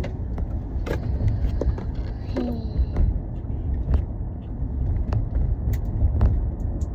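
Steady low rumble of a moving car heard from inside the cabin, with scattered light clicks and handling noises as a small sunscreen tube is opened.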